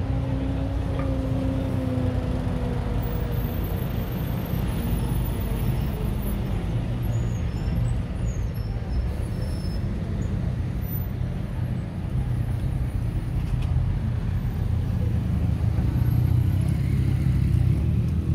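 City street traffic: a steady rumble of cars and buses running. A vehicle engine's hum sounds over the first few seconds, slowly dropping in pitch as it fades.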